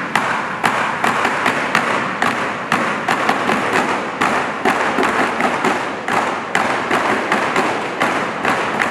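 Many foam kickboards slapped against the starting blocks, a fast uneven run of sharp slaps, several a second, as a team cheer.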